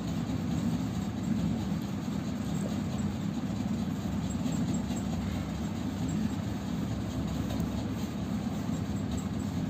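Steady low rumble that runs unbroken, without pauses or distinct strokes.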